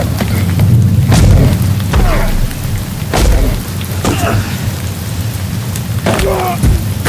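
Football players grunting and shouting in the rain, with several heavy thuds of contact in the first half, over a steady low rumble and rain noise.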